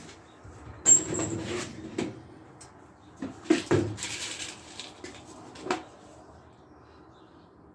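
Workshop handling noises: a sharp metallic clink about a second in, then several knocks and clatters of hard objects being moved and set down, with a cluster of them near the middle.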